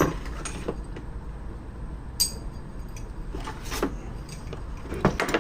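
Metal hand tools clinking and clattering as they are gathered and handled: a scatter of sharp clinks, the brightest with a brief metallic ring about two seconds in, over a low steady hum.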